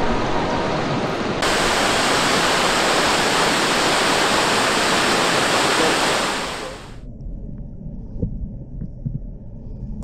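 Rushing water. From about a second and a half in, a waterfall's steady rush of falling water is the loudest sound, fading out after about six and a half seconds. It gives way to the muffled, low rumble of water heard underwater, with a few faint knocks.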